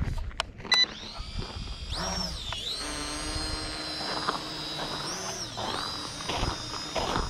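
Small quadcopter drone's electric motors and propellers spinning up about two seconds in, a high whine that dips and rises in pitch twice with the throttle as it takes off and hovers.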